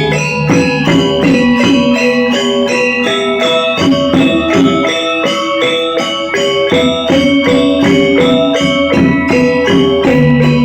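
Balinese gamelan angklung ensemble playing: struck metal keys in a fast, even stream of notes, about four a second, over low held tones.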